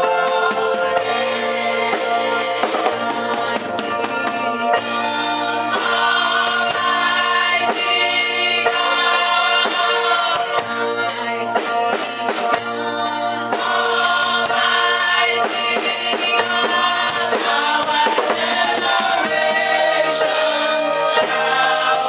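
Gospel music with a choir singing over a drum kit keeping a steady beat.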